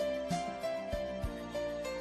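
Background music: a simple melody of notes stepping up and down over a light beat.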